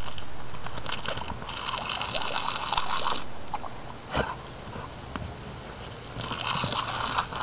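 Garden hose spraying water in two spells of hiss, the first longer, with a dog biting at the stream and a few sharp snaps in between.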